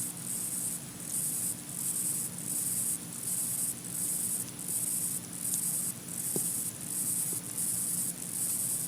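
Electronic hiss from the back of an iPhone 6S playing a video, picked up close with the volume boosted: a high-pitched hiss that pulses about twice a second over a steady low hum.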